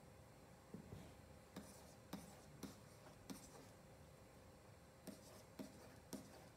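Faint taps and short scratches of a stylus writing digits on a tablet: a quick run of strokes, a pause of over a second, then a few more strokes near the end.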